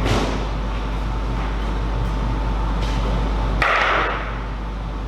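A few sharp, scattered clicks, typical of a celluloid/plastic table tennis ball striking a paddle or table, over a steady low hum. A louder, half-second rush of noise comes about three and a half seconds in.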